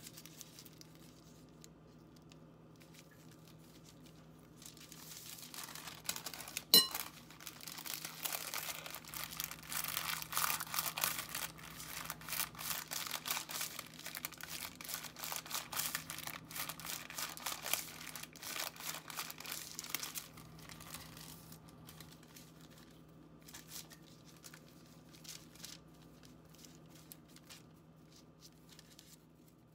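A white paper sheet crinkling as it is wrapped around a sushi roll and squeezed to shape it. The rustling starts about five seconds in and stops about twenty seconds in, with one sharp click about seven seconds in.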